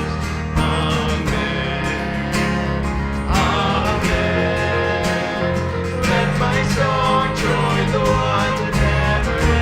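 Church worship music: a band playing sustained chords, with some singing.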